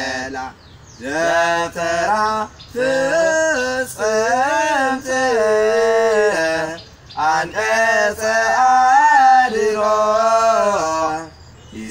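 A man singing unaccompanied, in long held phrases with ornamented, wavering pitch and short breaks for breath between them.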